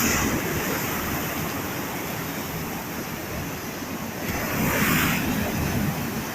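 Black Sea surf: waves washing in on the shore as a steady rush, with one louder wave breaking about two thirds of the way in.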